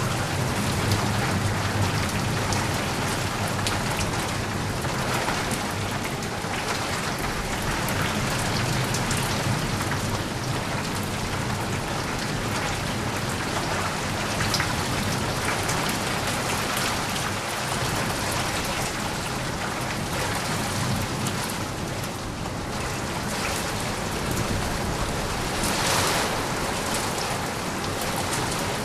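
Steady heavy rain falling. A low thunder rumble trails off over the first several seconds, and the rain briefly swells louder near the end.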